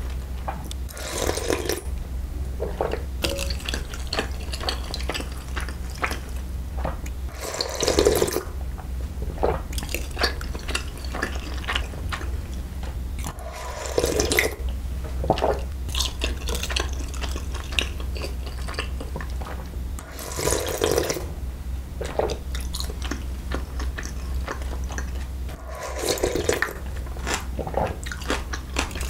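Slurping cold milmyeon broth from a wooden spoon, about five slurps roughly six seconds apart, with small liquid sounds of the spoon dipping into the broth between them. A steady low hum runs underneath.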